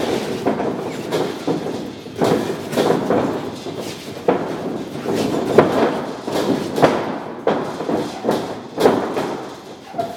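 Irregular thuds and slaps of light kickboxing sparring: bare feet shuffling and stamping on the boxing-ring floor, with gloved punches and kicks landing now and then.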